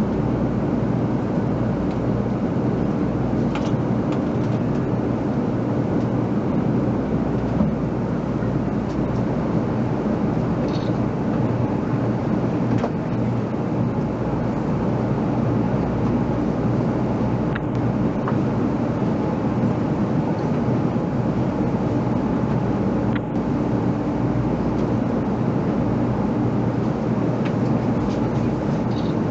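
A 300 series Shinkansen train giving off steady mechanical noise with a low hum that holds unchanged throughout, with a few faint clicks.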